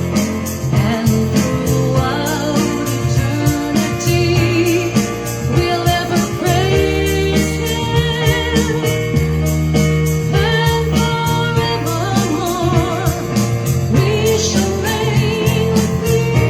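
A woman singing a worship song with vibrato over a recorded backing track with a steady beat.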